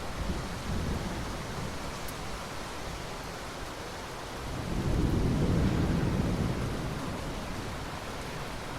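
Steady rain with rolling thunder: a low rumble at the start, then a louder, longer roll of thunder through the middle that fades back into the rain.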